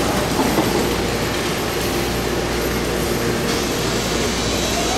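BART train at an underground station platform with doors closed, its equipment giving a steady hum and rumble; near the end a rising whine begins as the train starts to pull out.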